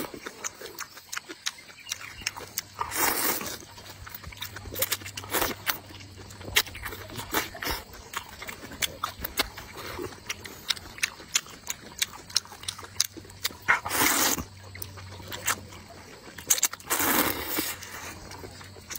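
Noisy slurping and chewing of spicy rice noodles in broth: three longer slurps, about three seconds in, near fourteen seconds and near seventeen seconds, with wet smacking chews and clicks between them.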